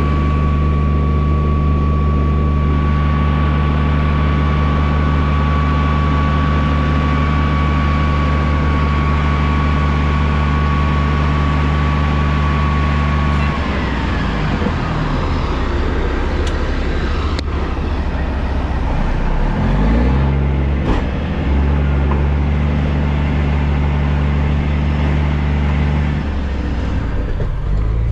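Engine of heavy harvest machinery running steadily under load, with a high whine over the engine note. About halfway through the whine stops and the engine note wavers. It briefly rises in pitch before settling back to a steady run near the end.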